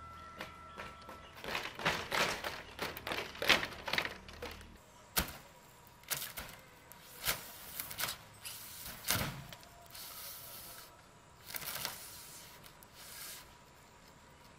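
Loose bamboo slats clattering in a quick run of clicks and knocks under a small child's footsteps, fading about 5 s in. After that come a few separate knocks and rustles about a second apart.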